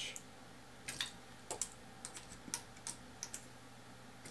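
Faint, irregular light clicks and ticks of a hex driver working a small mounting screw as the camera gimbal mount is tightened onto a carbon-fibre quadcopter frame. A faint low hum runs underneath.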